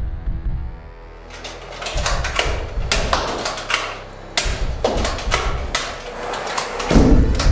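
A Nerf dart blaster being worked and fired in a quick, uneven string of sharp plastic clacks, with knocks as darts strike the target board. There is a heavy thump near the end.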